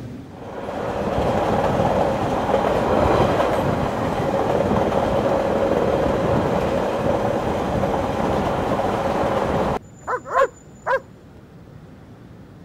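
A train running on rails: a steady rolling rumble with a humming tone, which cuts off suddenly near the end. A dog then barks three or four times in quick succession.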